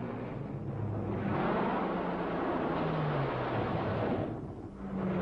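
A piston-engined fighter plane's engine drones past, growing louder about a second in and with a pitch that shifts slightly up, then dropping away briefly before coming back near the end.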